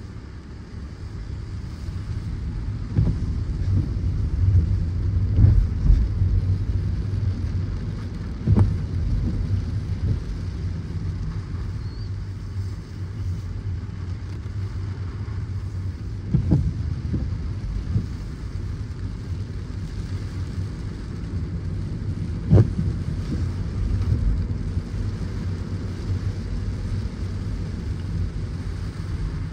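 Car driving in heavy rain: a steady low road rumble under a fainter hiss of rain, with a few short low thumps scattered through.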